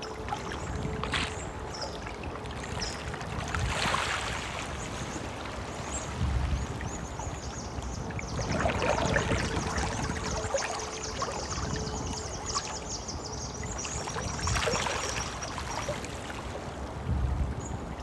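A stream flowing steadily over rocks, its rush swelling into louder splashing surges about every four to five seconds. Birds chirp briefly and high now and then, with a longer rapid high trill in the middle.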